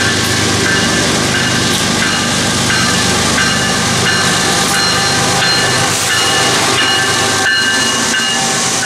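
Union Pacific diesel freight locomotive approaching and passing close by at the head of a double-stack container train, with steady engine and wheel noise. A grade-crossing bell rings in a regular repeating pattern over it.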